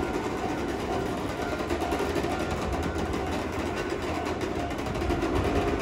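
Keihan electric train running, a steady rumble with a faint steady tone over it.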